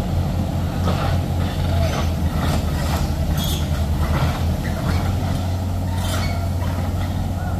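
Heavy truck's diesel engine running steadily, with a few short sharp noises over it.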